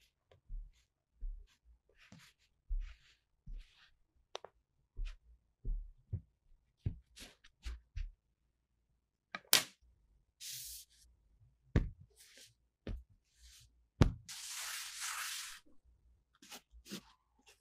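Metal meat tenderizer pressing and tapping into kinetic sand: a run of soft dull thumps with crumbly crunching, a few sharp knocks, and a longer rustling scrape near the end.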